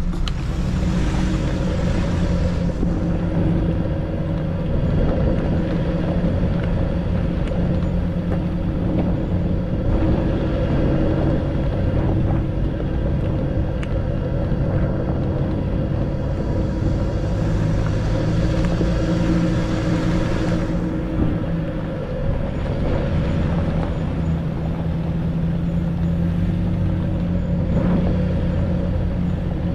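4x4 pickup truck engine running steadily under load as it drives over a rough, bumpy off-road track, heard from inside the cab.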